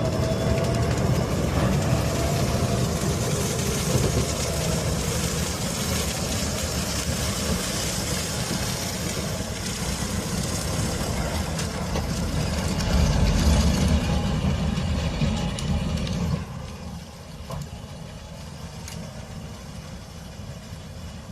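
Engine of a sweet potato vine harvesting machine running steadily with a low, dense rumble. It gets quieter suddenly about sixteen seconds in.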